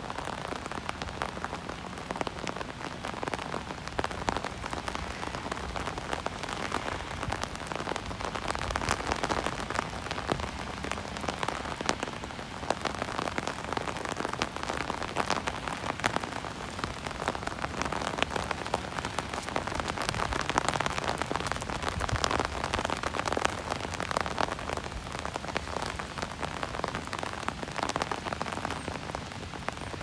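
Steady rain, its drops striking an umbrella canopy overhead as a dense stream of distinct little taps over a constant hiss.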